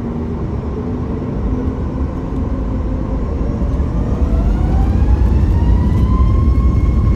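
Boeing 737 MAX 8's CFM LEAP-1B jet engines heard from inside the cabin, spooling up: over a low rumble, a whine rises in pitch from about halfway through as the sound grows louder.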